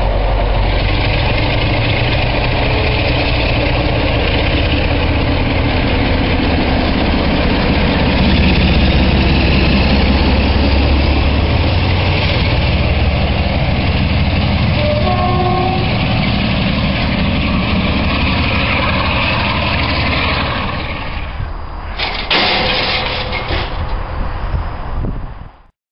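Class 47 diesel-electric locomotive's Sulzer engine running as the locomotive rolls past, a steady heavy diesel sound that grows a little louder as it draws level. Near the end the sound changes abruptly to a different, lighter noise.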